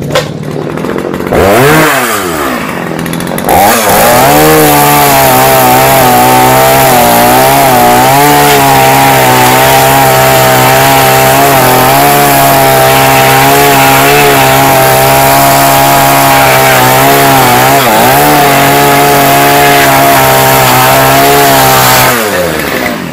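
Petrol chainsaw revving, then held at full throttle cutting through firewood, its revs dipping briefly about three seconds in and again about eighteen seconds in, before it is throttled off near the end. The chain needs a little attention.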